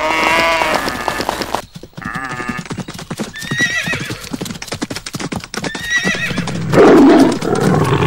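Animal sound effects: pitched animal calls at the start, then a horse galloping with fast clip-clopping hoofbeats and two whinnying neighs. Near the end comes a loud, rough roar, the loudest sound.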